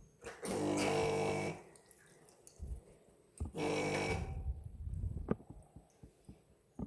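Espresso machine running in two short bursts, a buzzing hum with a hiss over it, with faint low thumps in between.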